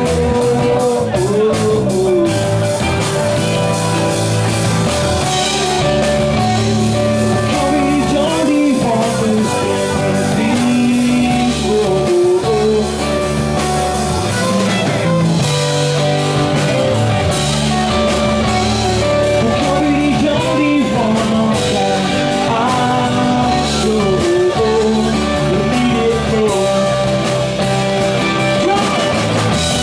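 Live rock band playing: a male lead vocal sung over acoustic and electric guitars, electric bass and a drum kit.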